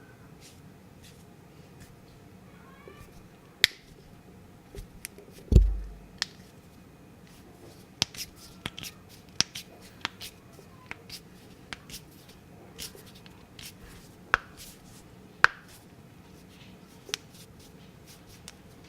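Knuckles cracking: a dozen or more sharp, separate pops at irregular intervals. The loudest comes about five and a half seconds in, with a low thud under it.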